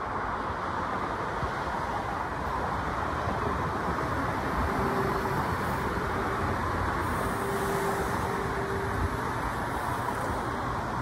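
Double-deck electric passenger train running in alongside the platform and slowing to a stop, with a steady rumble of wheels and running gear. A faint whine comes and goes through the middle.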